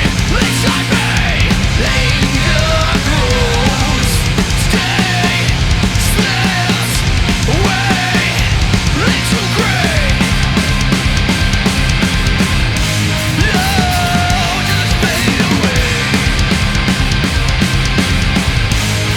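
Loud heavy rock music with a steady, driving drum beat.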